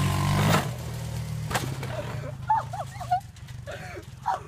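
ATV engine running steadily, fading out about two and a half seconds in, with a sharp click partway through. It is followed by a run of short, high-pitched cries.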